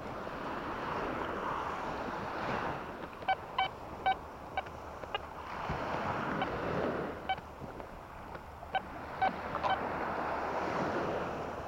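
Quest Q40 metal detector giving short high beeps in quick runs from about three seconds in, as its coil sweeps over a buried target in the sand. Behind them, surf washes in slow swells every few seconds.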